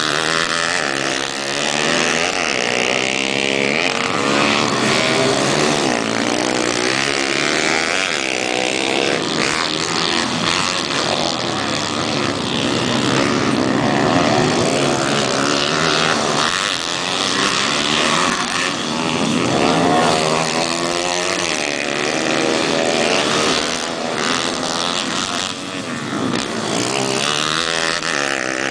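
Several pit bike engines revving hard together, their pitches repeatedly rising and falling as the bikes race. Near the end one bike passes close and its engine is loudest.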